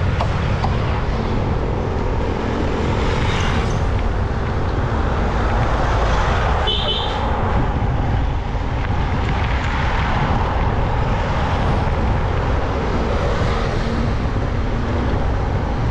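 Steady wind rush on the microphone and road noise while riding along a highway, with passing motor traffic. A short high-pitched beep comes about seven seconds in.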